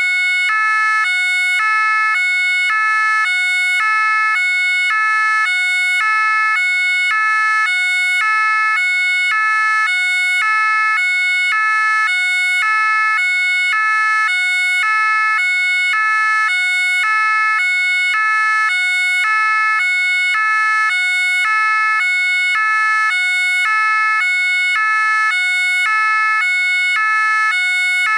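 French gendarmerie two-tone siren (the "pin-pon"), alternating evenly between two notes, each held about half a second, without a break.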